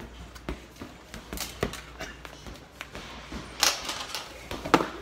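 Rubber playground balls being thrown and hitting during a dodgeball game: a run of irregular thumps and slaps, the loudest about three and a half seconds in and again near the end.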